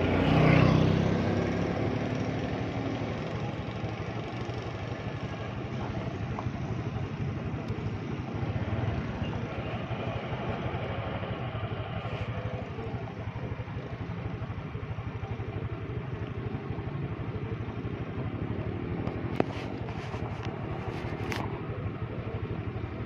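Motorcycle engine running steadily while riding, over a steady rush of road noise. In the first second or two a louder engine swells and falls in pitch as it passes.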